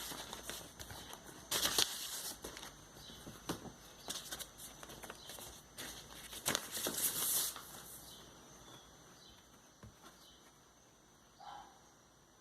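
Rustling, crinkling and light clicking of a vinyl record's sleeve and wrapping being handled. It is loudest about two seconds in and again around seven seconds in, then fades to a few faint touches.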